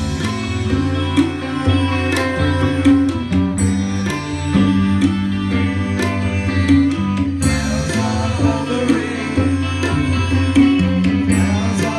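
Live band playing: electric bass, electric guitars and a drum kit with regular drum and cymbal hits.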